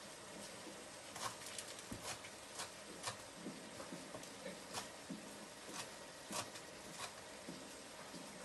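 Light clicks and taps at irregular intervals, up to about two a second, from hands handling things on a kitchen counter.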